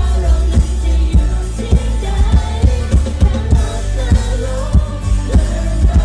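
Live pop band performance: singing over electric guitars, bass and a steady kick drum beat, a little under two beats a second.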